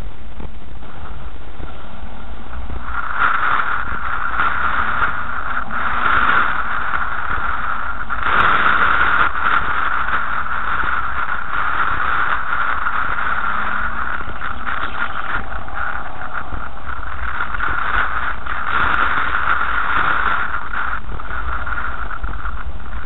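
Car driving slowly over a rough, muddy dirt track, heard from inside the cabin: a steady low rumble of engine and road noise, with scratchy tyre and gravel noise and occasional knocks as the car crosses ruts and puddles.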